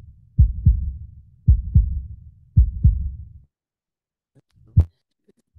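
Heartbeat sound effect: three low double thumps, lub-dub, about one a second, stopping a little past halfway, then a single low thump near the end.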